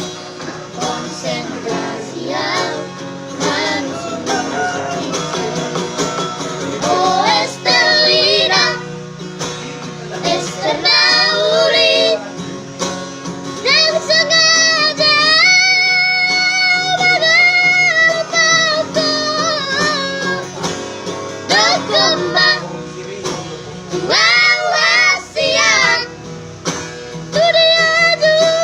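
Three children singing a song together over instrumental backing music, holding a long sustained note partway through.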